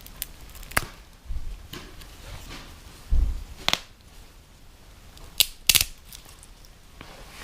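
Disposable wooden chopsticks burning in a small tabletop grill, giving scattered sharp cracks and pops, about five in all, with a couple of duller knocks among them.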